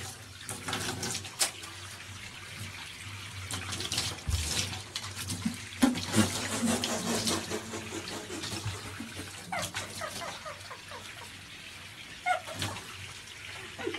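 Bathtub mixer tap running a thin stream of water into the tub, a steady splashing trickle, with a few sharp knocks in the first six seconds.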